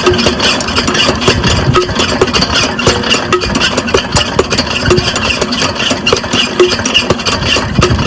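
12 HP single-cylinder diesel water-pump engine running steadily, with an even firing beat.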